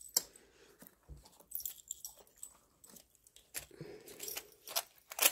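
Plastic coin tubes holding silver rounds clicking and knocking lightly as they are handled and set into a cardboard box: scattered short taps. There is a faint low murmur about four seconds in.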